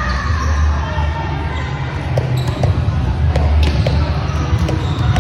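Volleyball gym ambience: balls thudding on the hard floor, with several short sharp squeaks or knocks and voices in the background, echoing in the large hall.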